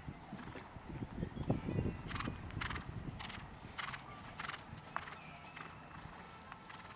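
Horse cantering on sand arena footing between show-jumping fences: dull hoofbeats early on, then a run of five or six short, sharp breaths, about one every 0.6 s, in time with its stride.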